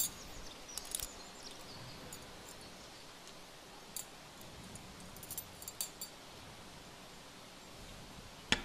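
Scattered light clinks and clicks of small hard objects being handled, a few at a time, with a single sharper click near the end, over a faint steady room hiss.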